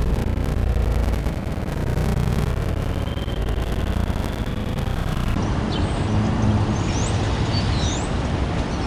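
Steady outdoor city traffic noise with a low rumble, and a few short high chirps in the last few seconds.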